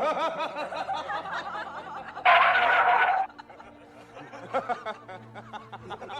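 People laughing in quick repeated bursts, with a louder, harsher shriek a little over two seconds in.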